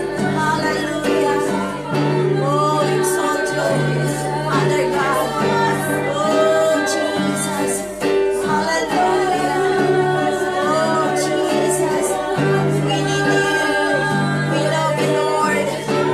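A woman singing a praise song into a microphone over an instrumental accompaniment with steady held bass notes.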